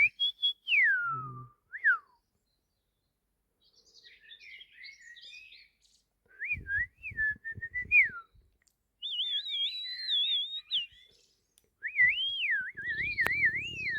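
Melodic whistling: phrases of a single clear tone that slide from high to low and wobble up and down, with short pauses between them. The longest wavering phrases come in the second half.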